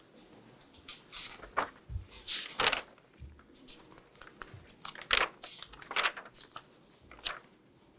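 Paper pages of a bound case file rustling and being turned by hand at a desk, a series of irregular swishes and crinkles, loudest in two clusters early and mid-way.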